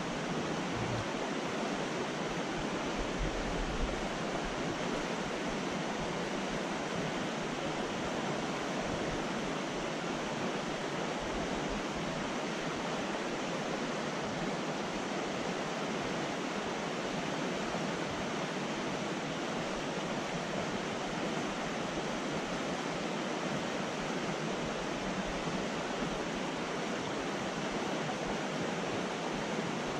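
Mountain trout stream running fast over a rocky riffle: a steady, even rush of water.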